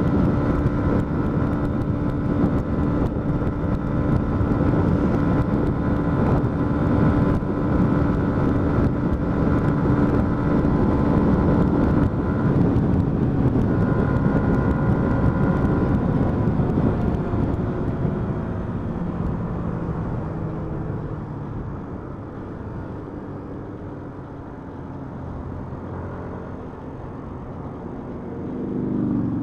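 Yamaha MT-125 single-cylinder engine running at steady cruising speed under rushing wind noise. About two-thirds through, the engine note falls and the wind noise eases as the bike slows. A brief swell in level comes near the end.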